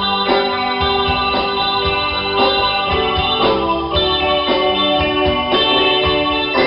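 A band playing: an electronic keyboard with an organ sound holds chords over bass guitar and drums keeping a regular beat.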